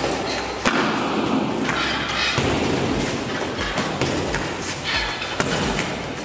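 Punches and kicks landing on a hanging heavy punching bag, a series of thuds.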